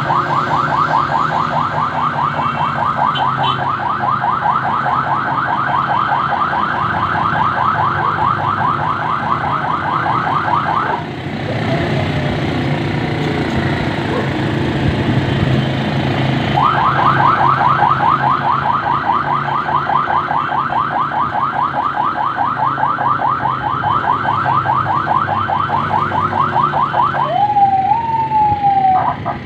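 Electronic siren sounding a fast, repeating yelp. It stops for about five seconds in the middle, then resumes, with a short zigzag of rising and falling whoops near the end. A motor engine hums steadily underneath.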